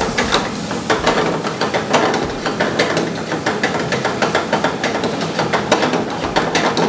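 Steel ladle stirring and scraping mutton pieces in black masala frying in oil in a frying pan: a continuous sizzle with many quick metallic clicks of the ladle against the pan.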